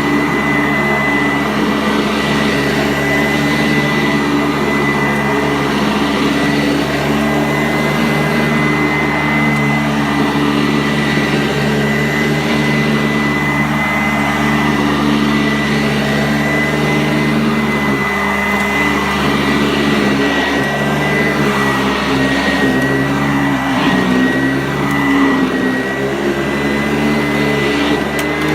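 Sanitaire SC684 upright vacuum cleaner running steadily over carpet, a motor hum with a constant high whine; the pitch wavers for a while past the middle.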